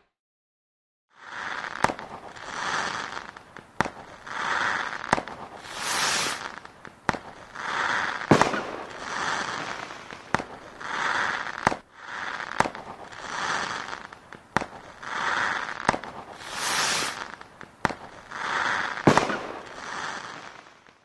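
Fireworks going off: a dozen or so swells of crackling, about one to two seconds apart, with sharp single bangs between them. They start about a second in.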